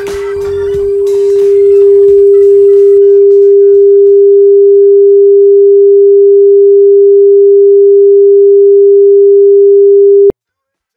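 A single steady electronic pure tone, mid-pitched, swelling to very loud over the first two seconds, then holding level until it cuts off abruptly near the end.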